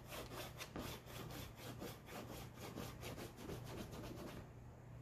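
A stick of white chalk scraping on black poster board in quick back-and-forth strokes, about seven a second, faint, stopping about four seconds in.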